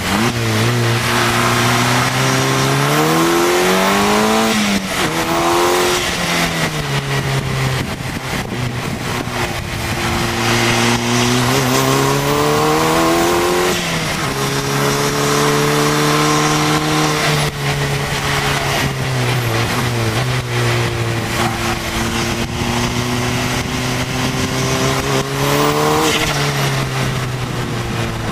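KTM X-Bow's turbocharged four-cylinder engine on track, heard from the open cockpit over heavy wind rush. Its pitch climbs under acceleration and falls off under braking several times, holding steady for a few seconds in the middle.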